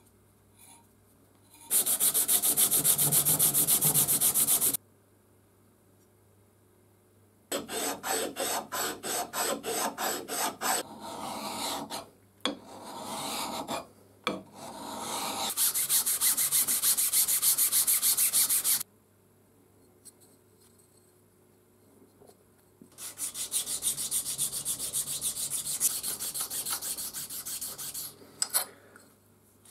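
Hand file rasping back and forth across the metal of a vise's movable jaw in several bursts of quick strokes, with short silent pauses between them; the last burst is quieter.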